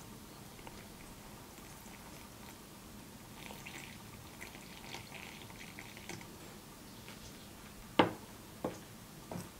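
Water poured into a glass bowl of gram flour, trickling faintly. About eight seconds in a mixing utensil strikes the glass bowl with a sharp clink, followed by a couple of lighter taps as stirring of the batter begins.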